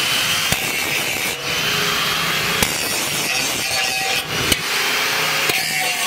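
Angle grinder with an abrasive disc grinding down a weld seam on a steel motorcycle fuel tank: a steady, loud rasping grind with a faint whine from the motor and a few brief sharp ticks.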